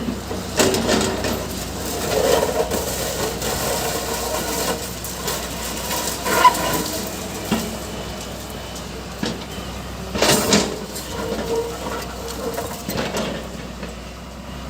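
Backhoe loader's diesel engine running under work, with irregular scraping and a few sharp clanks, the loudest about ten seconds in.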